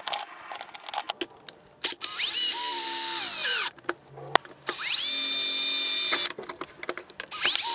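Power drill driving long machine screws through the gantry plate: three short runs, each spinning up to a steady high whine and then stopping, the last starting near the end. Light clicks and knocks of handled parts fall between the runs.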